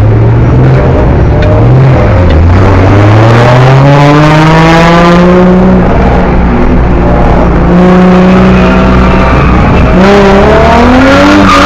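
Drift car's engine revving hard and very loud, close to the microphone: the pitch climbs steadily for several seconds, holds high, dips about ten seconds in, then climbs again.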